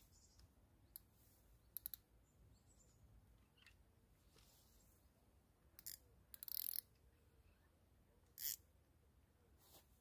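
Near silence broken by a few short, faint clicks and scratchy rustles: a quick triple click about two seconds in, and a longer scratchy burst past the middle.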